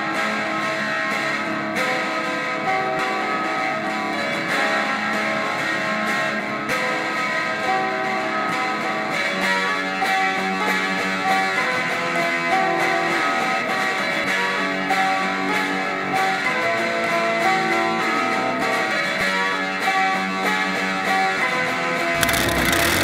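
Background music led by guitar, with plucked and strummed notes at a steady level.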